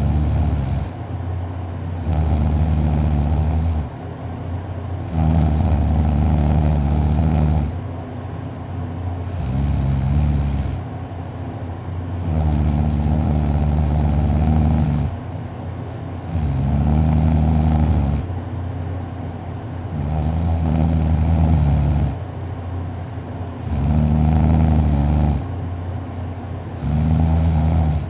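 A sleeping person snoring loudly: a low, droning snore on each breath, about eight in a row, one every three to four seconds, with quieter breathing between.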